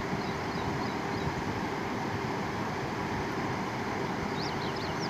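Floodwater flowing steadily over a submerged road causeway: a continuous, even rush of water.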